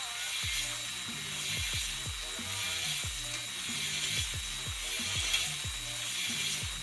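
Drill-driven stone-style cylinder hone spinning and stroking up and down in a cylinder of a Honda B17A1 block, a steady high scraping as the stones cut the glazed wall to a 45-degree crosshatch. Background music with deep falling bass notes comes in about half a second in.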